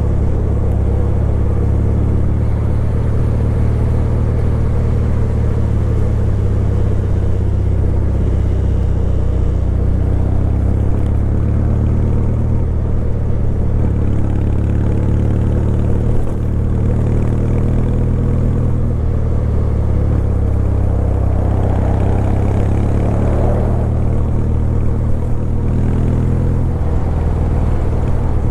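Kawasaki W800's air-cooled parallel-twin engine running steadily at a constant pace, a low, even exhaust note with little wind noise over it.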